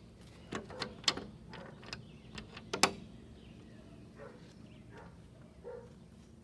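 Shed door being unlocked and opened: a run of sharp clicks and knocks from the latch and door, the loudest about three seconds in, then a few faint sounds.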